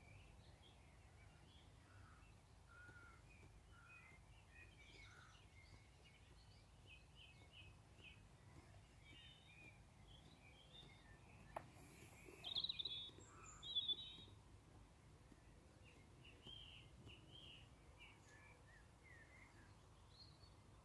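Birds chirping with many short, high calls. There is a sharp click a little past halfway, then two louder calls just after it.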